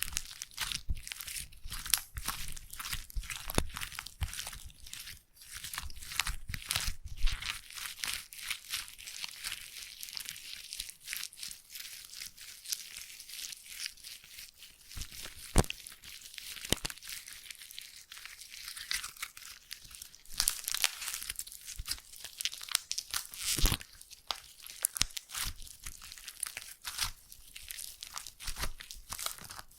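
Slime squished and pressed against the microphone for mock ear-cleaning ASMR: a dense, continuous run of sticky crackles and clicks.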